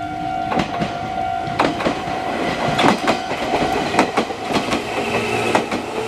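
Red Meitetsu electric train passing over a level crossing, its wheels clattering in quick knocks over the rail joints from about half a second in. Under the clatter the level-crossing warning bell rings on a steady tone.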